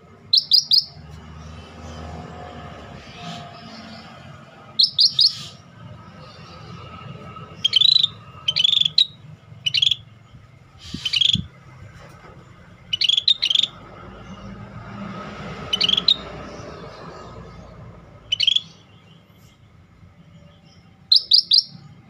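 Scaly-breasted bulbul (cucak bersisik) calling: about ten short bursts of two to four quick, sharp, high chirps, spaced one to three seconds apart.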